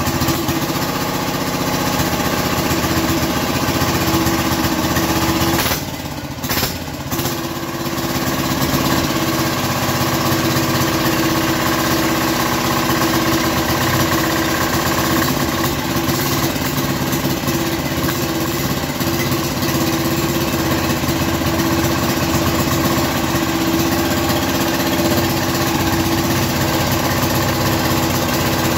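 Platinum 7.5 hp single-cylinder diesel engine running steadily at a constant speed.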